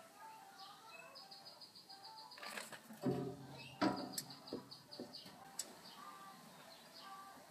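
Songbirds chirping and trilling softly outdoors, heard through a window pane. About three seconds in there is a louder brief low-pitched sound, with a few sharp knocks around it.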